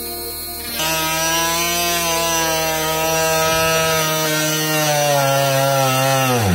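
Mini rotary grinder's motor whining as its drill bit bores into a wooden board. About a second in the whine gets louder, then sags slowly in pitch as the bit bites, dipping sharply at the very end.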